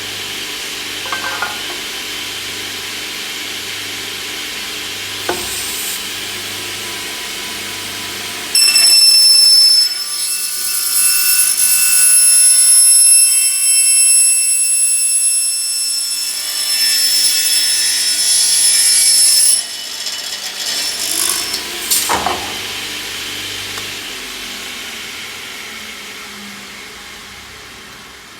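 Eisele LMS 350 S aluminium circular saw running, then cutting through aluminium stock for about eleven seconds with a loud, high ringing screech. A few knocks follow, then the blade winds down and the sound fades away.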